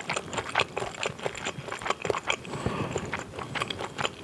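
A person chewing a bite of fried Korean fishcake roll with whole shrimp, close to the microphone: a quick, irregular run of soft wet mouth clicks and smacks, several a second.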